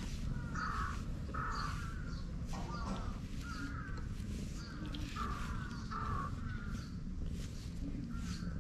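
Crows cawing, a run of about ten short, harsh calls in quick succession, over the soft rustle of a brush drawn through a cat's fur.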